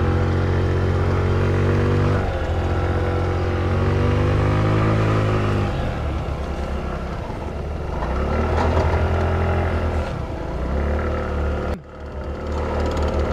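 Small motorbike engine running close by, its pitch rising and falling as it idles and is revved lightly, with a brief break near the end.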